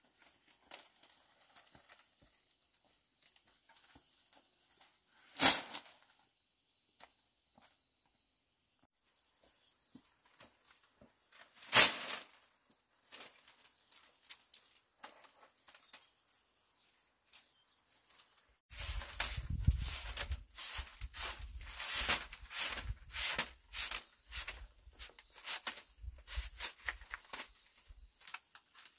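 Split bamboo strips clattering and knocking against one another as they are handled and laid out. There are two sharp single knocks in the first half, then a dense run of rattling clatter over the last ten seconds.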